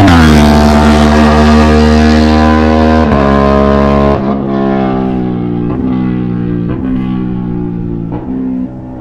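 Aprilia 660 parallel-twin motorcycle passing at speed. Its exhaust note drops sharply in pitch as it goes by, then it pulls away through several gear changes, growing quieter.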